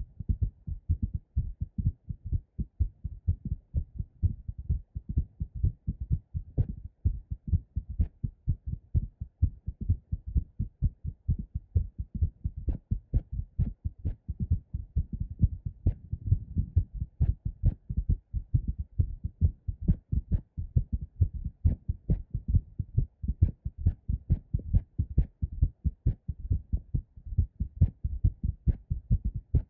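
Two close-miked recordings of a woman's heartbeat played together: a fast, pounding heartbeat recorded after squats, and a heartbeat recorded while holding the breath with pressure applied. The deep lub-dub thuds of the two rhythms overlap into a dense, steady pulse.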